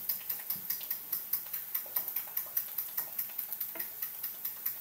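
Wooden spatula tapping and scraping against a frying pan as chopped onions are stirred: a quick, uneven run of short clicks, several a second.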